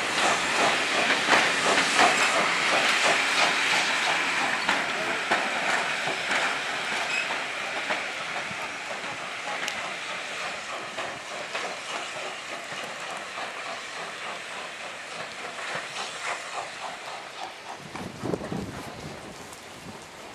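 Steam locomotive working hard as it pulls a passenger train away, with steam hiss and the clatter of carriage wheels over rail joints. It fades steadily as the train draws away.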